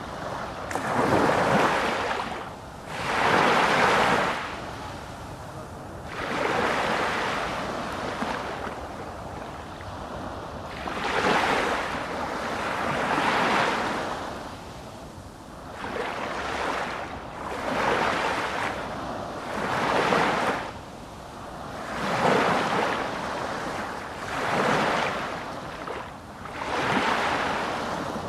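Ocean waves washing ashore, the surf swelling and falling back every two to three seconds.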